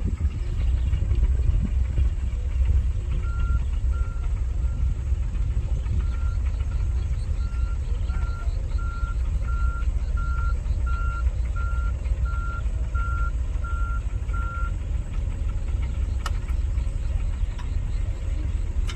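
Heavy diesel construction machine running with a low rumble, its reversing alarm beeping steadily about once every 0.7 s for some ten seconds while the machine backs up. There is one sharp click near the end.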